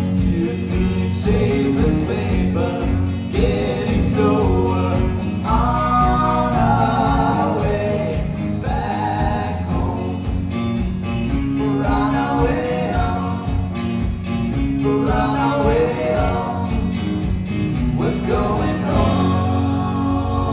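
A live rock band playing electric guitars and drums, with a singer's voice carrying over it, heard from among the audience in the room.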